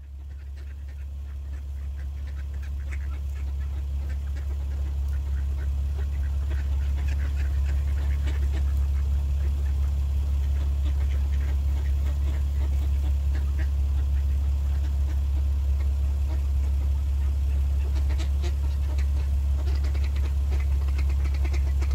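A flock of mallards calling, scattered short quacks and chatter, busier near the end, over a loud steady low rumble that swells in over the first several seconds.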